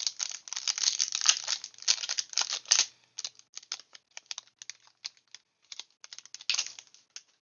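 Foil booster-pack wrapper crinkling and tearing for about three seconds, then sparser short clicks and rustles of handling.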